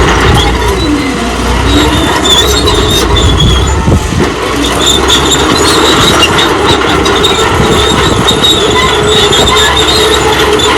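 Old crawler bulldozer working: its engine running over a low rumble while the steel tracks squeal and clank. A lower pitch dips and recovers about a second in.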